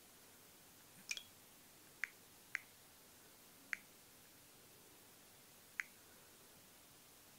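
Five short, sharp clicks over near silence, the first a quick double, from a finger pressing and tapping an LG L40 smartphone while working through its settings menus.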